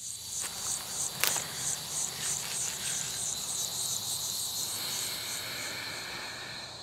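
Insects chirping in a steady rhythm, high-pitched, about three to four chirps a second, with one sharp click a little over a second in.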